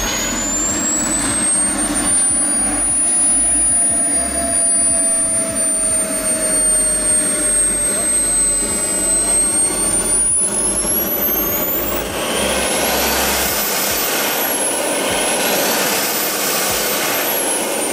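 Small turbine engine of a radio-controlled model jet running on the ground with a high whine. The whine climbs in the first few seconds and holds, then about two-thirds through it is throttled up, rising steeply, dipping once and rising again before easing off near the end.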